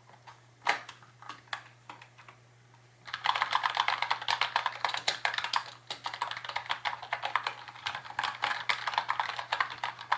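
RedThunder 60% membrane keyboard, tape- and foam-modded, being typed on: a few separate key presses, then fast continuous typing from about three seconds in.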